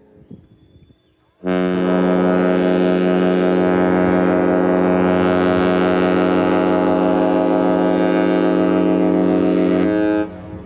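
A cruise ship's horn sounds one long, steady blast lasting about eight seconds. It starts abruptly a second and a half in and cuts off near the end.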